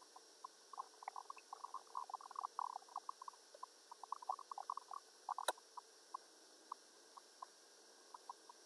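Faint, irregular small ticks and clicks with one sharper click about five and a half seconds in: computer mouse and desk handling noise.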